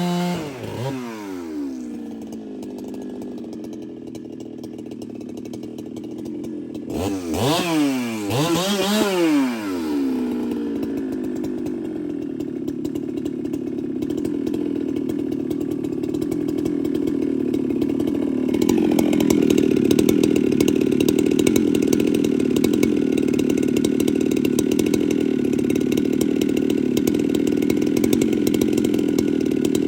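Ported Husqvarna 395 two-stroke chainsaw: the revs drop off from full throttle at the start, it is blipped twice, then it runs steadily, getting louder about two thirds of the way through.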